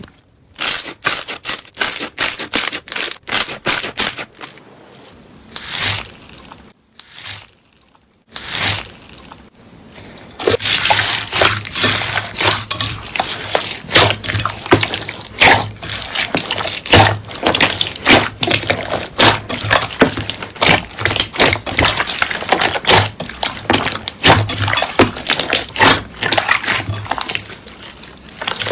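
Slime being squeezed and poked by hand, giving rapid crackling and popping clicks. A few seconds of separate clicks, a short lull with only a couple of pops, then from about ten seconds in a dense, continuous crackle.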